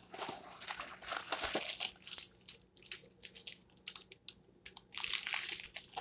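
Food packaging being handled: a cardboard box rustling and plastic-wrapped pastry pouches inside it crinkling in irregular bursts as one is pulled out.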